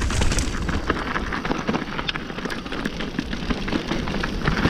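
Mountain bike rolling fast down a loose dirt and gravel trail: wind buffeting the microphone as a steady low rumble, with tyres crunching over stones and a rapid scatter of clicks and knocks as the bike rattles over the rough ground.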